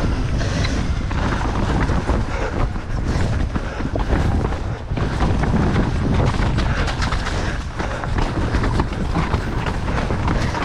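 Downhill mountain bike rattling at speed over a rough, wet trail: a constant irregular clatter of chain, frame and suspension as the tyres hit roots and rocks, over a heavy rush of wind on the microphone.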